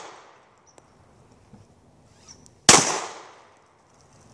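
A single 9 mm pistol shot from a Glock 43, about two-thirds of the way in, sharp and loud, its report dying away over about a second. At the start the tail of the previous shot is still fading out.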